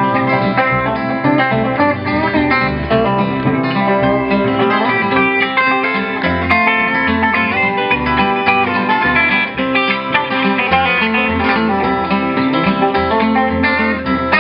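Instrumental break in a country song: acoustic guitar playing steadily with no singing.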